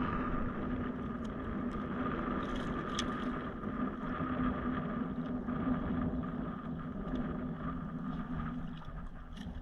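Shallow water sloshing around wading legs and a landing net while a fish is handled, under wind and a steady low hum that fades out near the end, with a few faint clicks.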